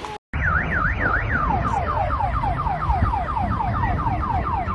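Car alarm sounding over a steady low rumble. It starts suddenly after a split-second dropout, with a quick up-and-down warble for about a second, then switches to a falling whoop repeated about four times a second.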